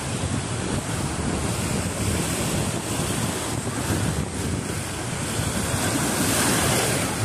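Small sea waves breaking and washing over a shallow, rocky shoreline: a continuous hiss of surf, swelling a little about six seconds in as a wave breaks close by. Wind buffets the microphone with a low rumble.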